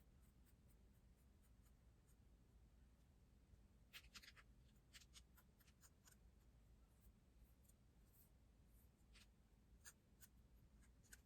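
Near silence: faint low room hum with scattered light clicks and ticks, a small cluster of them about four seconds in.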